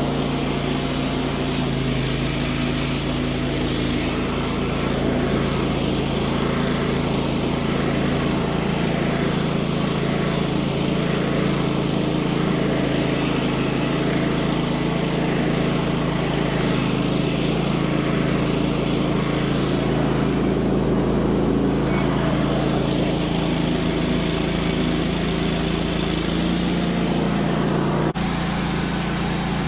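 Wood-Mizer LT15 portable band sawmill running steadily, its engine and band blade sawing through a hard maple log. The sound changes abruptly near the end.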